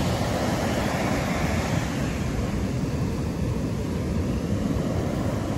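Steady rush of wind buffeting the microphone over the wash of breaking surf, rumbling most in the low end.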